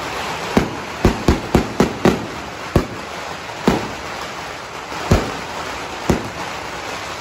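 Aerial fireworks going off: about ten sharp bangs against a steady noisy background, coming in quick succession in the first two seconds and then more spaced out.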